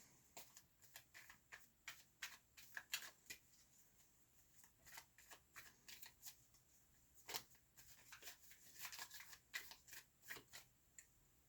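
Tarot cards being handled: an irregular series of short, crisp card flicks and snaps, in clusters, as cards are shuffled and laid out.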